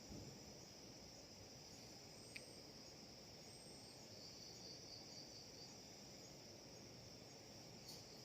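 Faint, steady high-pitched insect chirring over low background hiss, with a single small click a little over two seconds in.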